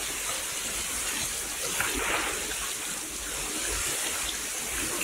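Artificial indoor rain pouring continuously onto the floor of the installation: a steady, dense hiss of falling water and splashing drops.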